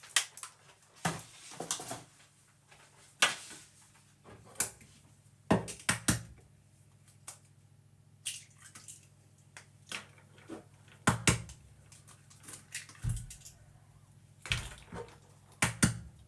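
Medium eggs being cracked into a kitchen scoop: sharp taps and knocks of shell against the rim, coming in clusters every few seconds.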